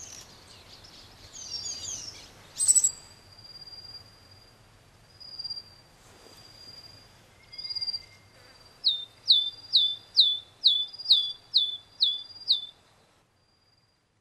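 Small songbirds calling: scattered high chirps, then a run of about nine sharp downward-slurred notes, two to three a second, over a steady high thin tone. The sound cuts to near silence about a second before the end.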